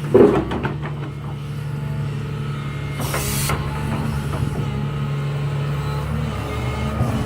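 Excavator's diesel engine running steadily, with a loud knock right at the start and a short hiss about three seconds in.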